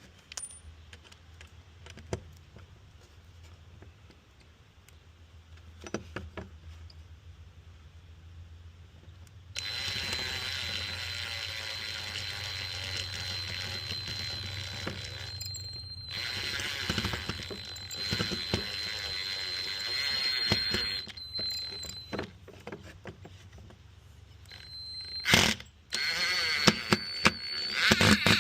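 Power drill driving screws into a wooden gate. It runs with a steady whine for about ten seconds with brief pauses, then there is a sharp knock, then another run near the end at a slightly higher pitch.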